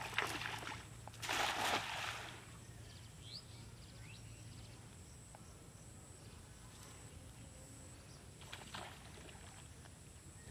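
A cast net lands on pond water with a splash about a second and a half in, just after being thrown. A second, softer splash of water comes near the end.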